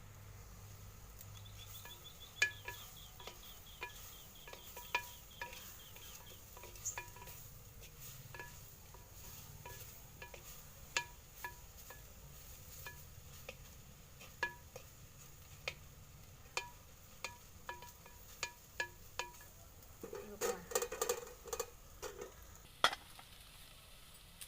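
A metal utensil clinks against a metal cooking pan every second or so, and each strike rings briefly. The clinks bunch into a quick clatter about twenty seconds in. An insect chirps in a fast, even pulse train during the first several seconds.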